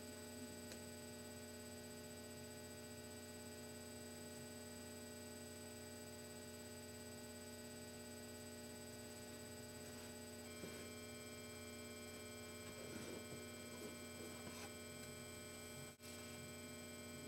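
Steady electrical hum: a low drone with several thin, high whining tones over it. Faint soft scratches and taps from the ink brush and paper come in the second half, and the hum drops out for an instant near the end.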